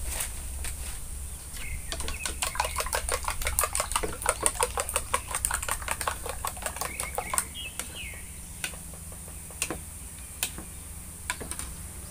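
A metal spoon beating eggs in a bowl: quick, even clinks for about six seconds, then a few scattered single taps of the spoon.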